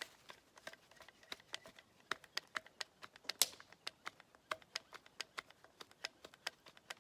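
Grease gun being pumped into a grease fitting, a run of sharp irregular clicks, several a second, with one louder click about three and a half seconds in. The cartridge is running low on grease.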